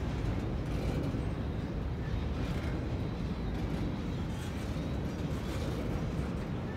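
Double-stack intermodal container freight train rolling past, a steady low rumble of wheels on rails.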